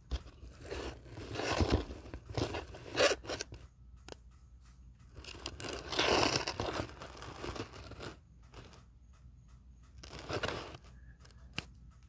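Rustling and scraping close to the microphone as objects are moved and handled, in three bursts: a long one with several scrapes at the start, another about halfway through, and a short one near the end. A faint regular ticking carries on in the quiet gaps.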